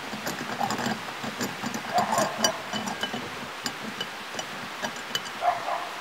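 Paper towel rubbing round the inside of a cast-iron skillet on a gas canister camping stove, with irregular scuffs and light clicks and knocks as the pan shifts on the burner.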